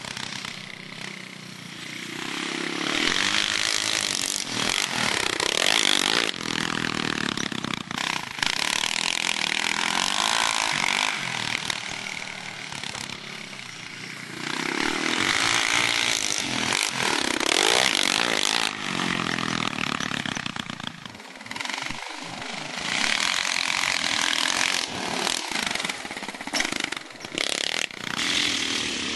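Yamaha Raptor 660 quad's single-cylinder four-stroke engine being ridden hard on a dirt track. It revs up and drops off again and again, with several louder surges.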